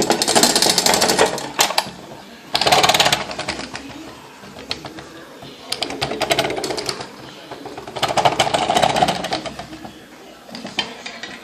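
Rapid mechanical clatter from a 1960 Structo pressed-steel toy bulldozer running, coming in about four bursts of a second or so each.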